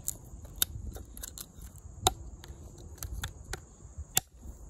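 LionSteel M7 fixed-blade knife chopping into wood with its front edge: a run of sharp knocks of uneven strength, the hardest coming about every two seconds.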